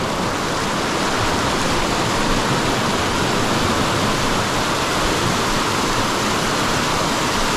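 Rushing water of a mountain stream and waterfall, a steady, even rush with no breaks.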